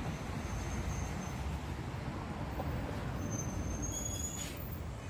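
Road traffic with a city bus close by: a steady low rumble of engines and tyres. A faint high whine comes in twice, and a short hiss sounds near the end.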